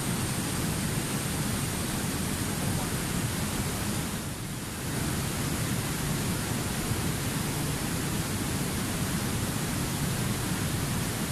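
Rushing water of fast river rapids: a steady, even white-water noise, briefly a little softer about four and a half seconds in.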